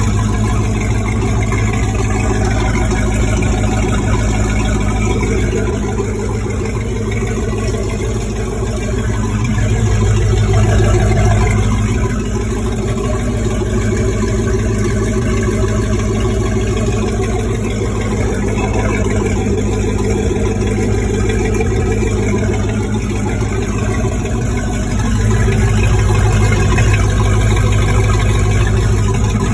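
Big-block V8 of a 1996 Sea Ray running at idle with a cam lope, test-run on its trailer with the MerCruiser outdrive sitting in a tub of water. The engine note swells slightly twice, about a third of the way in and near the end.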